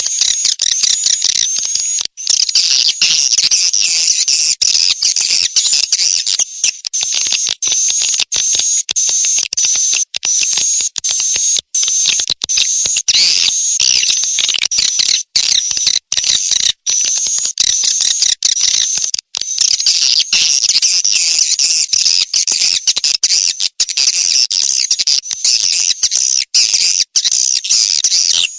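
Swiftlet lure call: a dense, continuous chatter of quick high twittering chirps from edible-nest swiftlets. It is a recorded colony call of the kind used to draw young swiftlets, and it is broken by many brief drop-outs.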